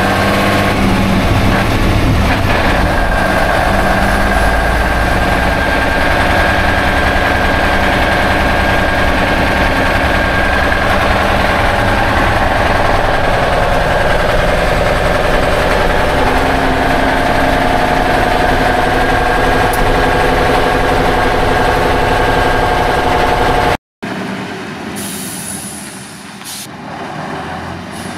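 Škoda RTO fire truck's diesel engine running steadily as the truck drives, heard from inside the cab, with engine tones that shift slowly. About four seconds before the end it cuts off abruptly to a quieter passage with two short hisses.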